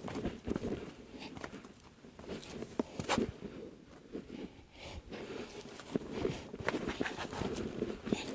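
A hiker's footsteps on a trail, an irregular series of crunching steps, the loudest about three seconds in.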